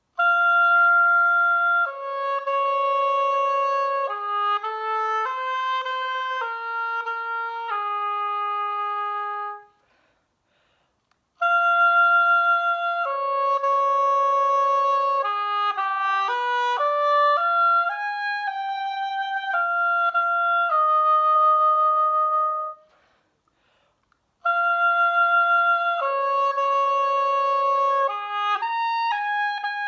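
Solo oboe playing an unaccompanied melody in three phrases, each opening with the same long held note, with short breath pauses between them.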